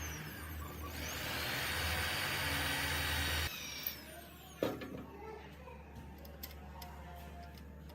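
Power drill running as it bores pin holes through wooden handle scales, stopping abruptly about three and a half seconds in; then a single knock and a few light clicks of handling.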